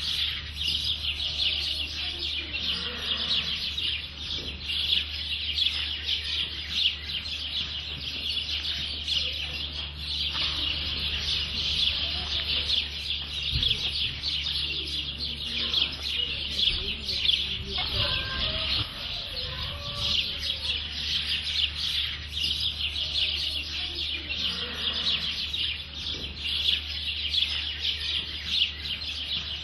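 Outdoor farmyard chorus: dense, steady high-pitched chirping throughout, with a few fowl calls, such as clucks, mixed in around the middle.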